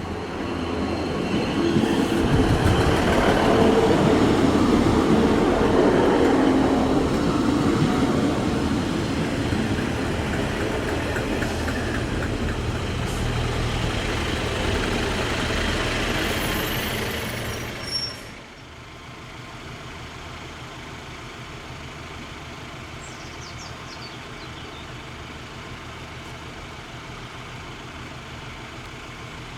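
Class 143 Pacer diesel multiple unit running loud, its engine drone mixed with wheel and rail noise. About two-thirds of the way through it cuts off abruptly to a quieter, steady engine hum.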